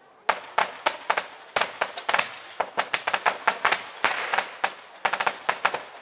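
Firecrackers going off in a long, rapid, irregular string of sharp bangs. They start a moment in and stop abruptly just before the end.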